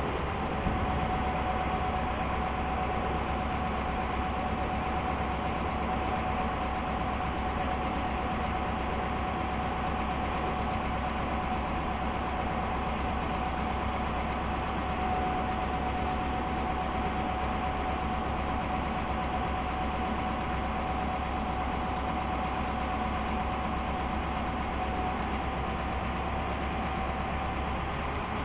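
Caterpillar diesel engine of a Ford L8000 derrick digger truck running steadily to power the hydraulic boom as it is raised, with a steady high whine over the engine's low drone. A short knock sounds just under a second in.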